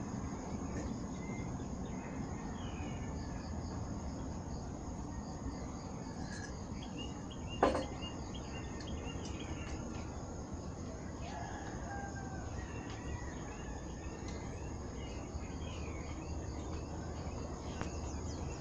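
Outdoor rural ambience: a steady insect drone with faint scattered bird chirps, and a single sharp click a little before the halfway point.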